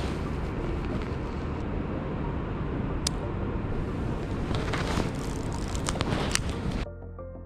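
Outdoor city ambience with wind noise on the microphone and a few sharp clicks from handling the small film camera. Near the end it cuts off suddenly to soft background music.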